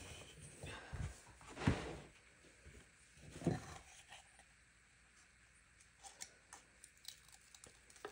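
Faint rustling and crinkling of a paper release liner being peeled slowly off a double-sided adhesive sheet. A couple of soft handling sounds come in the first half and a few light ticks near the end.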